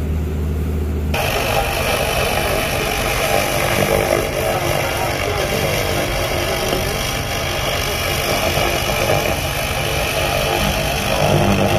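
2000 W continuous-wave laser cleaner ablating heavy rust off steel: a steady, dense crackling hiss that starts abruptly about a second in. Before it, a low hum.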